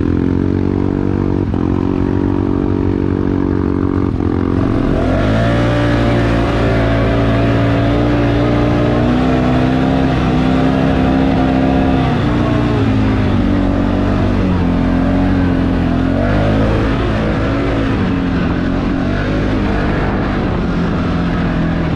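Four-wheeler engine running steadily, then opened up about four seconds in and held at higher revs for several seconds before easing off and revving up and down through the rest.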